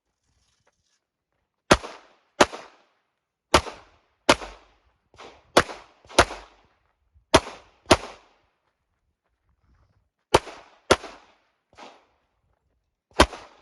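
Handgun shots fired in quick pairs with short pauses between, about a dozen in all: a shooter engaging targets on a USPSA stage, two rounds per target.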